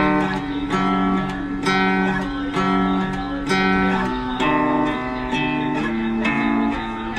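Song backing music: an acoustic guitar strumming chords, a strum about once a second as the chords change, with no vocals.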